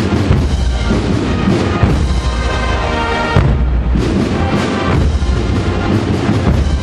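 Processional band playing a Holy Week march behind the paso, with heavy bass-drum beats under the melody.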